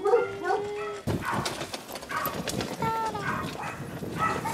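A Shiba Inu in a wheeled rear-support dog wheelchair whimpering, over the scrape and light rattle of the chair's wheels and the dog's front paws on rough asphalt.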